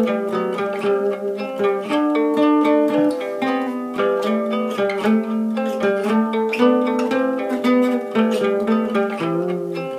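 Old Soviet acoustic guitar picked with a handmade plectrum, playing an improvised melody in a quick run of single plucked notes.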